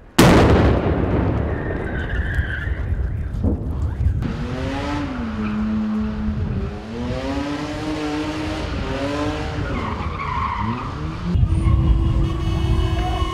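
A firework goes off with a sharp bang at the start, its noise dying away over a few seconds. Then a car's tyres squeal in long wavering squeals that rise and fall as it spins in circles, over engine rumble. Near the end a car horn sounds in one steady tone.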